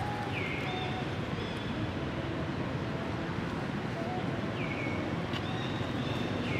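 Steady outdoor rumble and wind noise, with a high whistled call that steps down in pitch, heard three times.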